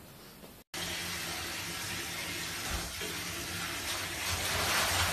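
Water running from the tap into a bathtub: a steady rush that starts suddenly under a second in and grows louder toward the end.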